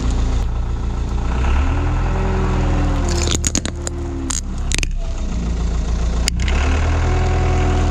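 Heavy vehicle's engine running, its pitch rising and falling, as its tyres roll over plastic toys, with several sharp cracks of plastic breaking about three to five seconds in and once more a little after six seconds.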